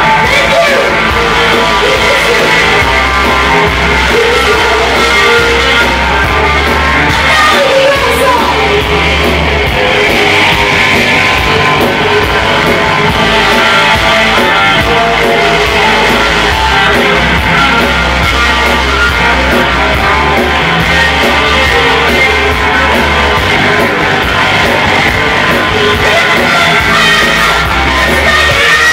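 Live rock band playing loud: a woman singing into a microphone over electric guitar and electric bass guitar.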